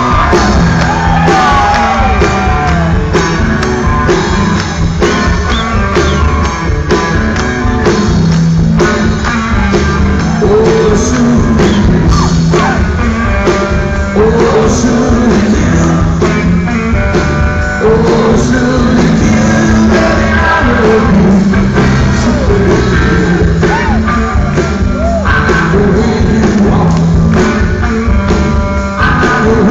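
Rock band playing live with a lead singer: drums, bass and guitars running steadily and loud under the vocal.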